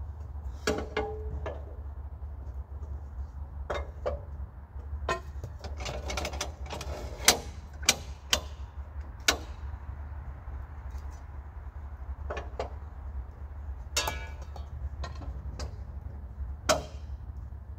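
Irregular metal clanks and knocks from handling the Norwood HD36v2 sawmill's log bed and clamps around an elm log, a dozen or so sharp strikes with the loudest around the middle and near the end. A steady low rumble runs underneath.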